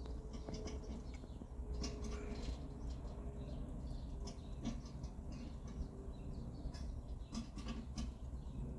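Low steady hum with scattered faint clicks and ticks, and a faint thin tone that comes and goes.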